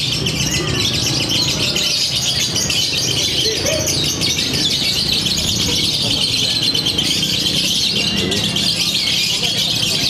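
Many lovebirds singing at once in a continuous, high, rapid chattering trill, with a low murmur of a crowd beneath.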